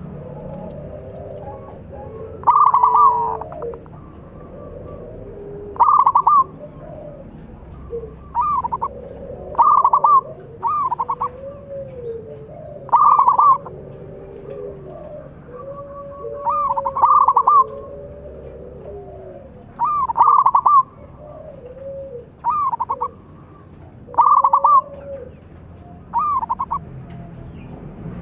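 Zebra dove (perkutut) singing its cooing song in short phrases every few seconds, with softer, lower coos between them.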